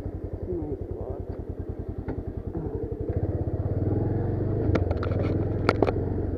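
Motorcycle engine running with an even pulse, getting louder about three seconds in as it pulls up a climb on a rough track. A few sharp knocks come near the end.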